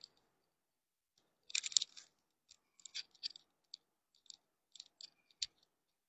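Scattered faint crinkles, rustles and clicks of clothes being handled, the loudest cluster about one and a half seconds in and a sharp click near the end.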